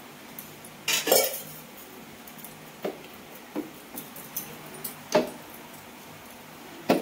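Steel vessels knocking and clinking as a stainless-steel mixer-grinder jar and steel pots are handled: a series of short, sharp metal knocks, loudest about a second in, about five seconds in and near the end. The grinder motor is not running.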